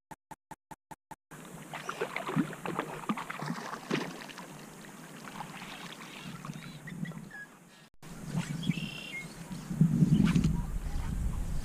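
Water splashing and sloshing as a hooked trout thrashes at the surface, with a quick, even ticking in the first second. Near the end, wind buffets the microphone.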